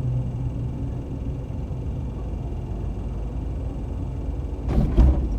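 Toyota RAV4 driving at walking pace, a steady low rumble of engine and road noise heard from inside the cabin. A brief louder noise comes near the end.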